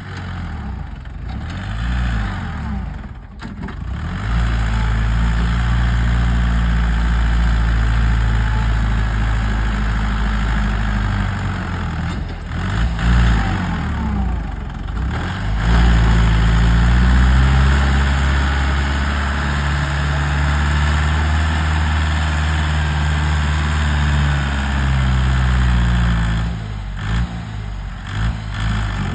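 Compact tractor's diesel engine running hard under load as it strains to pull a loaded trailer out of soft ground. The revs rise a few seconds in and again about halfway through, then drop near the end.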